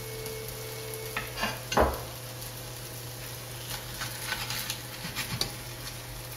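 Pancakes frying in ghee in a stainless steel skillet, a steady sizzle. A couple of clattering knocks from crockery come about a second and a half to two seconds in, and light scrapes and taps from a spatula in the pan follow later.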